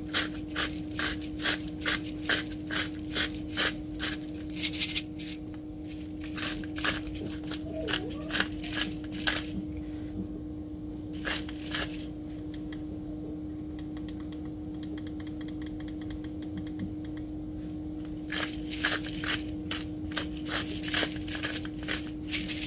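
Salt and pepper being dispensed over raw asparagus and green beans: runs of quick, crisp clicks about three or four a second, broken by short pauses, with a steady low hum underneath.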